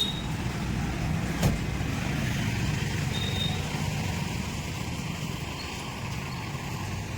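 Renault Kwid three-cylinder petrol engine running steadily at idle, with a single short click about a second and a half in.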